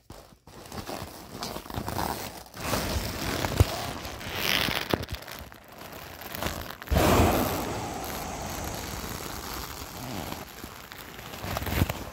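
Thin vinyl of a large inflatable corgi toy crinkling and rustling as it is handled and squashed during deflation, with a louder burst about seven seconds in that tails off over the next few seconds.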